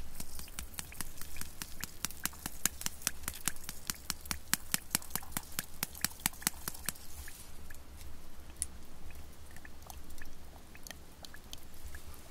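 A plastic seasoning shaker being shaken over a pot of water and flour: a fast run of dry, rattling ticks, about six a second, lasting about seven seconds, then scattered lighter ticks.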